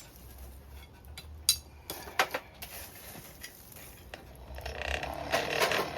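Metal clinking at a coal forge: two sharp clinks about a second and a half and two seconds in, then a louder rough rushing and rattling noise that builds toward the end.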